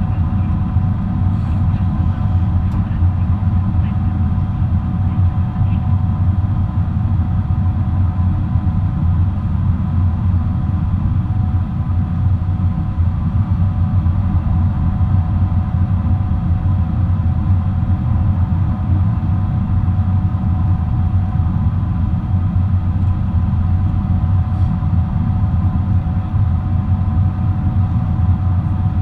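Steady cabin noise of a Boeing 777-300 airliner in flight: an even, deep rumble of engines and airflow with faint steady tones above it.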